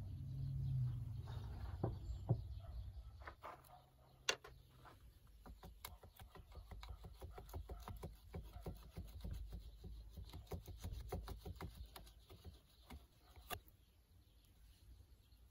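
Rusted blade of an antique hand saw being worked loose from its wooden handle: a run of faint clicks and scraping of steel against wood, with a few sharper knocks, the last one near the end.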